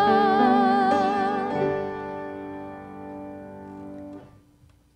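Grand piano and singing voices ending a song: a final note held with vibrato over piano chords. The voice stops and the piano chord rings on alone, fading, until it is released about four seconds in.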